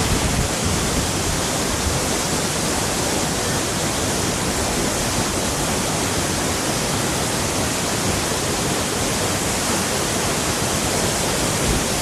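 A waterfall's falling water: a steady, even rush of noise.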